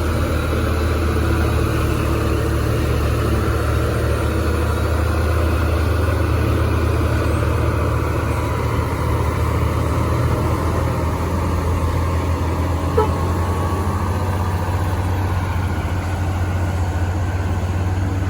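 Heavy truck engine running at a steady pace, a deep low drone with no revving up or down. There is one short click about thirteen seconds in.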